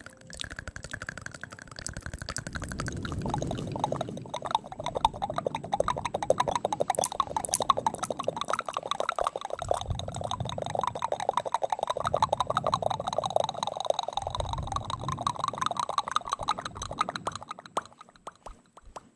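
ASMR mouth sounds made right at the microphone: fast wet clicking and smacking of lips and tongue, with a few low muffled puffs now and then, fading out near the end.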